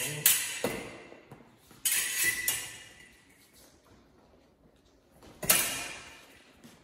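Fencing foil blades striking together, a handful of sharp metallic clinks, some with a brief ring: a few near the start, a cluster about two seconds in, and the loudest about five and a half seconds in.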